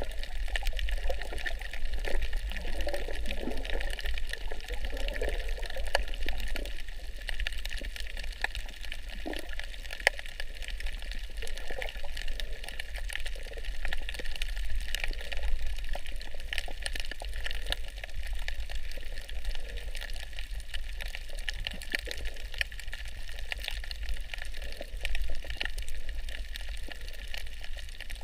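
Water sloshing and swirling around a camera held underwater, with scattered crackling clicks and a steady low rumble.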